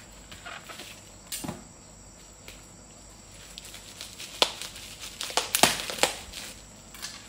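Plastic bubble wrap crinkling and crackling as it is handled, then cut open with a knife. There is one sharp crack about a second in, and a run of louder cracks and snaps in the second half as the blade goes through the wrap.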